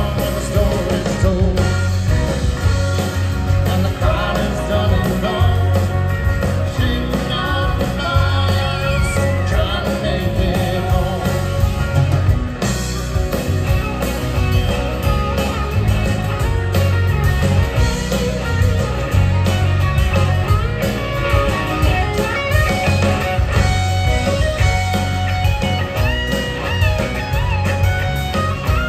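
Live country-rock band playing through a PA system: electric and acoustic guitars, fiddle, keyboards, bass and drums, with a heavy, steady bass and beat.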